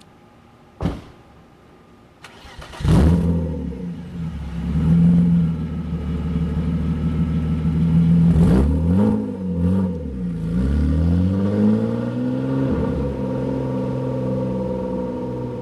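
A car engine cranks and catches about three seconds in after a couple of knocks, then runs steadily. Its speed swings up and down a few times around the middle before it settles.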